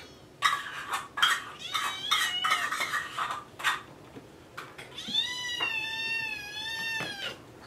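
Young kittens meowing insistently to be fed: several short, high meows in the first half, mixed with sharp clinks of dishes from the counter, then one long drawn-out meow about five seconds in.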